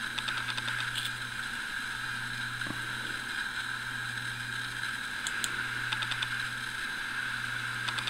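Faint small clicks and taps of fingers working the plastic parts of a model railway carriage as a light bar is pushed into its socket, in a few short clusters over a steady background hum.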